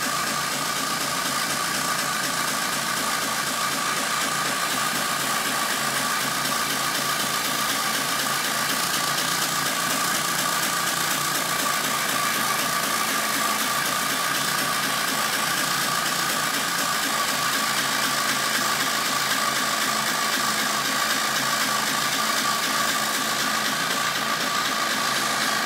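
Tractor engine running steadily, with a constant high whine over it.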